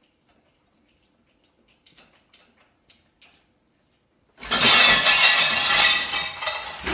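A few faint clinks of dishes in an open dishwasher rack as a dog licks the plates, then, about four and a half seconds in, a sudden loud crash and clatter of crockery in the dishwasher rack lasting a couple of seconds.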